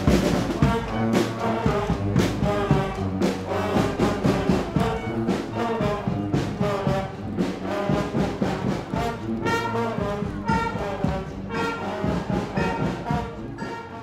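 Street brass band playing, with trombone and other horns over a steady beat of percussion strikes; the music fades out near the end.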